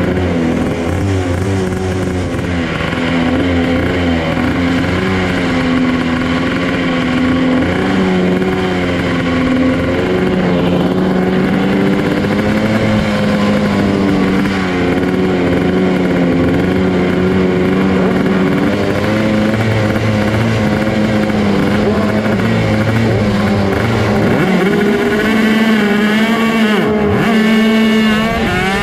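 Close-up onboard sound of a Rok Shifter kart's 125cc two-stroke engine running at low revs under light throttle, its pitch stepping up and down. Near the end the revs dip briefly and then climb steeply.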